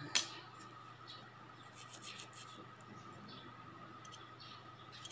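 A sharp click just after the start, then faint, short scratching sounds of a wooden cuticle stick scraping under fingernails.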